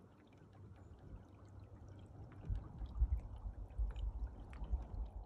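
Water gently lapping and gurgling, with scattered small splashy ticks over a low, uneven rumble that grows louder about halfway through.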